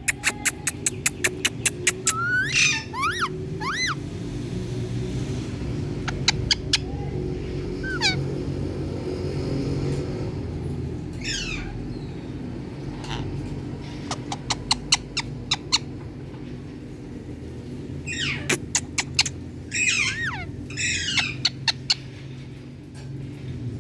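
Indian ringneck parrot making runs of rapid clicks, about seven a second, between short whistled chirps that slide up and down in pitch.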